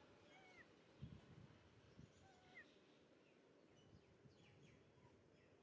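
Near silence: faint outdoor ambience with a few faint, short, high chirps and two soft low thumps.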